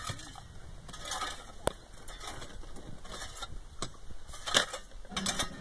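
A small hand digging tool scraping and chipping into stony soil at an excavation, with stones and earth clinking and crunching in irregular strokes; the sharpest knock comes about four and a half seconds in.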